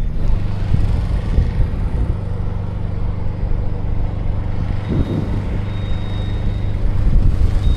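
Engine of a piece of tree-work machinery running at a steady speed.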